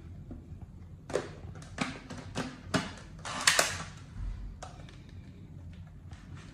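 Hard plastic parts of a handheld vacuum cleaner being handled: about half a dozen sharp clicks and knocks, roughly a second apart, the loudest about three and a half seconds in.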